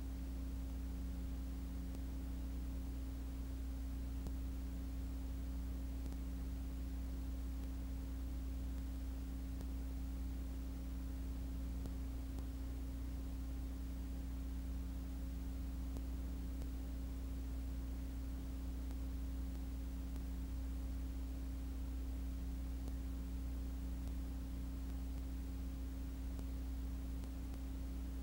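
Steady low electrical hum with a second, higher steady tone above it, unchanging throughout; no kart engine or other sound is heard.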